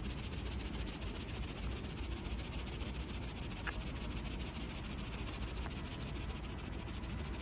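Steady low rumble of outdoor railway-station ambience, with one faint short click about three and a half seconds in.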